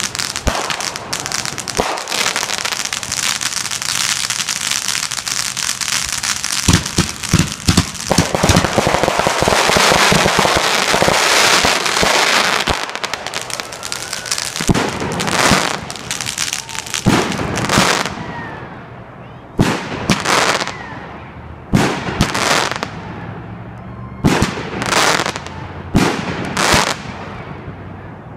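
Consumer fireworks going off: a dense barrage of crackles and cracks for about the first dozen seconds, then separate sharp bangs every second or two, some with short whistles.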